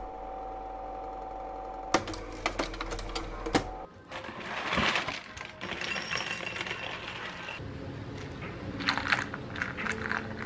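Dry cereal pouring from a crinkling plastic bag into a ceramic bowl, the pieces clattering against the bowl in quick patters. A low steady hum runs under the first few seconds.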